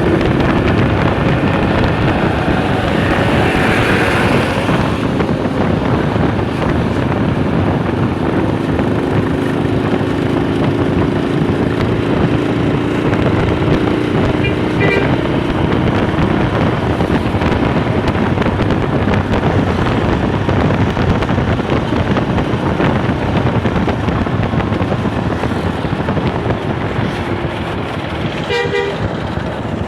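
Steady road and wind noise of travelling close behind or alongside a tour bus, with a faint held horn tone partway through and short, rapid horn toots twice: about halfway and again near the end. The toots are typical of a bus's Basuri telolet air horn.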